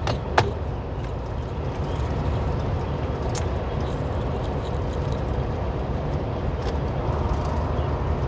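Steady engine and road noise inside a semi truck's cab on the highway, with a few light clicks and rattles.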